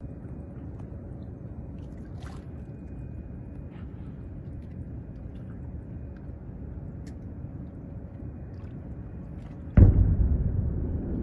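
Steady low background rumble, then near the end a sudden heavy boom, strongest in the low end, from a distant oil refinery explosion, dying away over about a second into a louder rumble.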